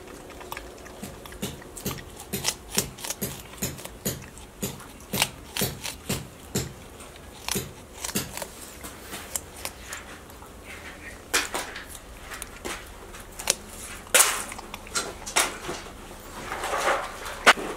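Crested porcupine chewing and crunching watermelon, a run of sharp, irregular crunches a few times a second.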